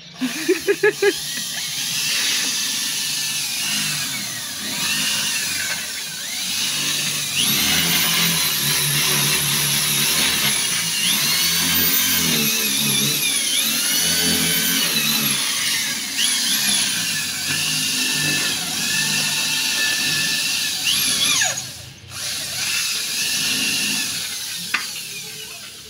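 Corded electric drill boring into a concrete wall, its motor pitch rising and falling again and again as the trigger is squeezed and eased. It stops briefly about 22 seconds in, then starts again.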